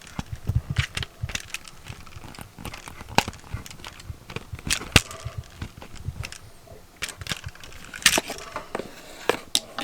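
A plug being pushed and worked into a tamper-resistant wall outlet, whose spring-loaded shutters resist the prongs. It gives irregular plastic clicks, knocks and scrapes throughout.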